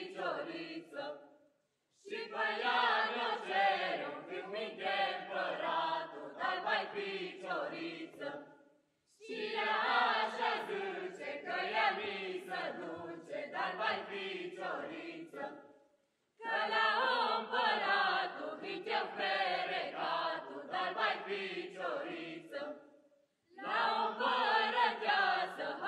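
Mixed group of men and women singing a Romanian colindă (Christmas carol), in phrases of about seven seconds with short pauses between them.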